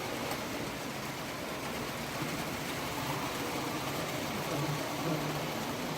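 Model train running on layout track, with a steady whirr and a low murmur of hall noise behind it.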